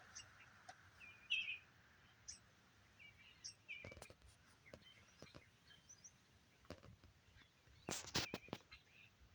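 Faint, scattered chirps and calls from a large flock of birds in the trees, which the filmer thinks are starlings. A short cluster of knocks sounds about eight seconds in.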